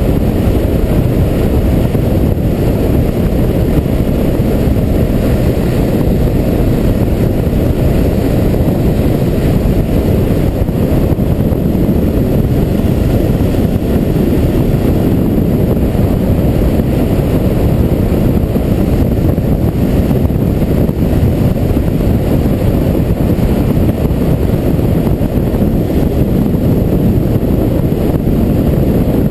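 Steady low rumble of wind buffeting the microphone on a Yamaha Ténéré motorcycle cruising at road speed, mixed with its engine and tyre noise. The sound is constant throughout, with no changes in speed or gear.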